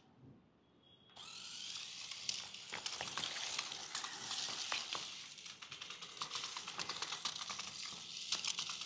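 Small electric motor and gears of a remote-control climbing car running, starting about a second in, a steady hissing whir with many quick clicks and rattles as it tows a plastic toy snake tied to it.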